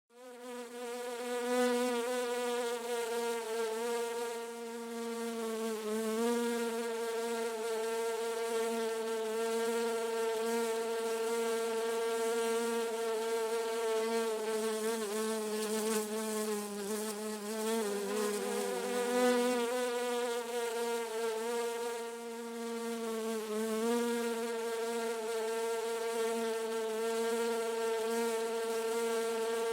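A bee buzzing continuously in flight, a steady pitched drone whose pitch wavers and dips briefly a few times.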